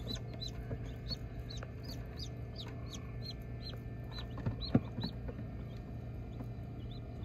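Newly hatched silkie–satin mix chicks peeping: a run of short, high, falling peeps about three a second that stops after about five seconds. Under them is a steady low hum, and a single knock sounds about two-thirds of the way through.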